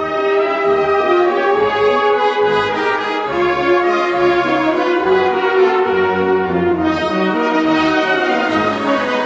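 Brass-led music playing a slow passage of long, held chords.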